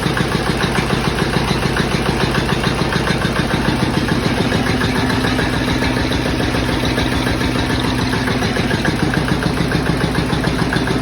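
Southern Cross BDC single-cylinder stationary engine running steadily with a fast, even firing beat, going like a beauty now that it runs again.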